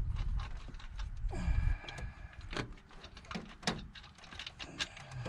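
Throttle body of a Ford 460 EFI V8 being worked loose by hand from the intake: scattered light clicks and knocks of metal and plastic. A low wind rumble on the microphone for the first second and a half.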